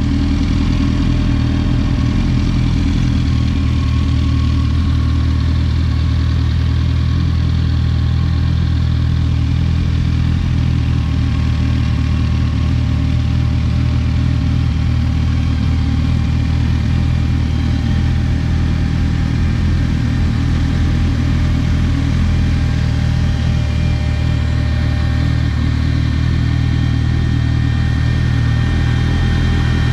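Yamaha R1 inline-four engine in a Raptor quad idling steadily, with no revving.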